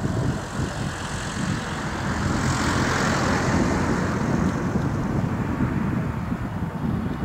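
Jet engines of an Airbus A300-600 airliner landing, a steady rush that swells about three seconds in as it touches down. Gusty wind buffets the microphone underneath.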